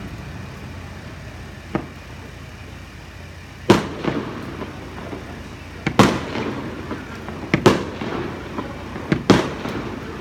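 Aerial fireworks shells bursting overhead: a faint pop, then a series of sharp bangs at irregular intervals, each with an echoing tail. Near the end several come in quick pairs.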